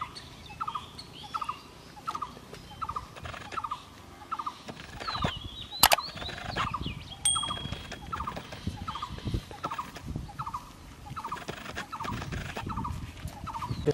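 A bird repeating a short, pulsed call at a steady pace, about once every three-quarters of a second, with fainter higher chirps of other birds around it. A single sharp click sounds about six seconds in.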